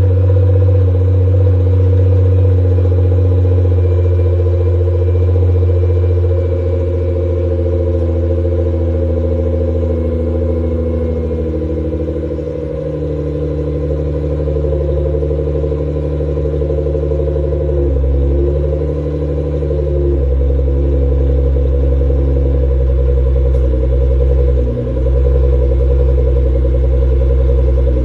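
Nissan GT-R R35's twin-turbo 3.8-litre V6 idling through an ARMYTRIX full titanium exhaust after a cold start: a steady, deep drone whose pitch steps down a few times as the fast cold idle settles.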